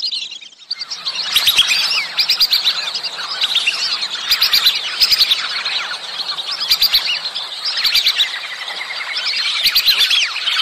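A flock of whistling ducks calling: many high, thin whistles overlapping in a dense, continuous chatter. The calling drops away briefly just after the start. These are the mating-season calls used to lure whistling ducks.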